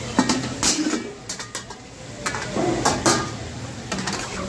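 Several sharp metal clanks and scrapes of a karahi: an upturned metal wok used as its lid is lifted off with tongs, and a ladle scrapes through the mutton in the pan.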